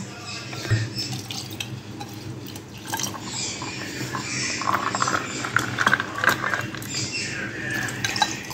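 Milk poured in a stream into a tall glass over ice cubes, a dense splashing pour that starts about halfway through. Before it come a few short knocks.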